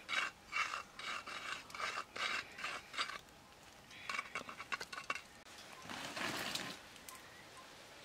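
A charred piece of roasted food scraped back and forth through sauce on a plate: a run of short rasping strokes, about two a second, a few more after a brief pause, and one longer scrape near the end.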